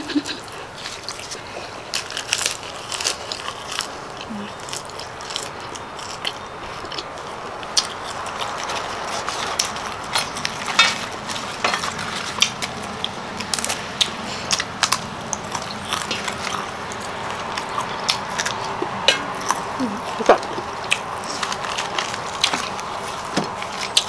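Close-miked chewing of a mouthful of raw beef koi and sticky rice: wet smacking and small crunching clicks, scattered unevenly throughout.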